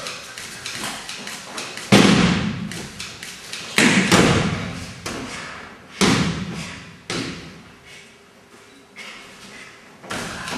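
About half a dozen heavy thuds of bodies landing on the mat in aikido throws and breakfalls, roughly one every one to two seconds, each dying away before the next.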